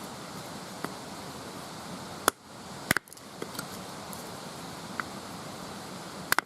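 Wood fire burning with a steady hiss and scattered sharp crackles and pops, several of them loud.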